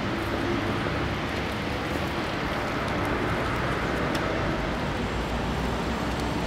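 City tram rolling slowly along street rails: a steady low rumble over general city traffic noise, with a short click about four seconds in.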